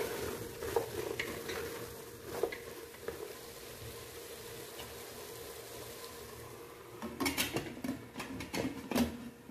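Chickpeas and potato pieces being mixed by hand in an aluminium pressure cooker, with scattered soft knocks against the pot. From about seven seconds in, a run of louder metal clatters as the pressure cooker's lid is fitted and locked on, over a steady low hum.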